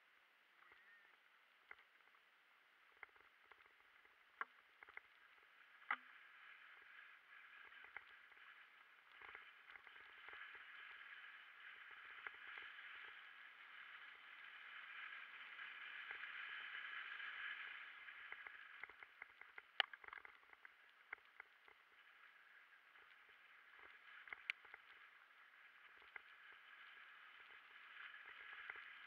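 Mountain bike rolling down a dirt trail, heard faintly from the rider's own camera: a steady hiss that swells about halfway through and then falls back, broken by many sharp knocks and rattles as the bike and camera jolt over bumps.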